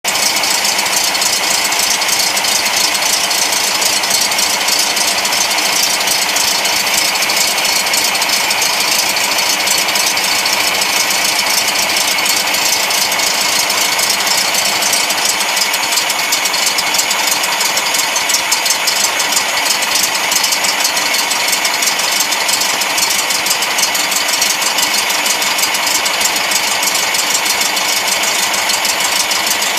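Volkswagen Bay Window bus's air-cooled flat-four engine idling steadily, with a fast, even mechanical clatter.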